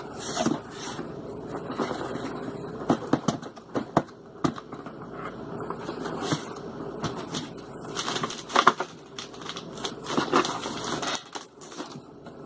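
Cardboard shipping box being rummaged through and a boxed figure worked out of it: cardboard scraping and rustling, with scattered knocks and taps, the loudest a little past the middle.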